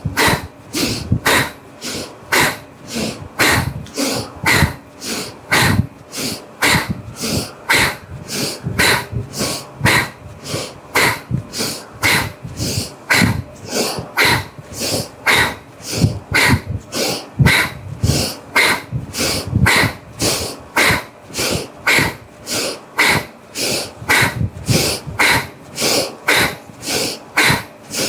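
Bhastrika (bellows breath) pranayama: forceful, hissing breaths in and out through the nose, alternating at an even pace of about two strokes a second.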